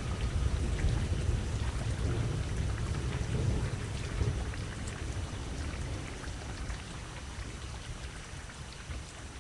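Steady crackling, rain-like noise over a low rumble. The rumble fades after about four seconds and the whole sound slowly dies down toward the end.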